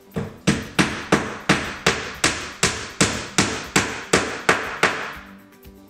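Hammer driving a 1-inch nail into the stacked countertop panels: a quick, even run of about fourteen blows, roughly three a second, stopping about five seconds in.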